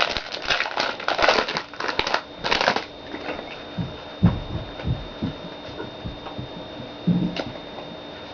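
Pokémon card booster pack's foil wrapper crinkling as it is torn open, for about three seconds, then a few soft low thumps as the pack is handled.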